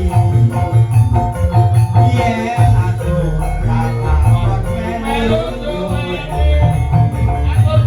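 Live band music played loud: a pulsing bass beat under a melodic lead line, with a shaker ticking along on top.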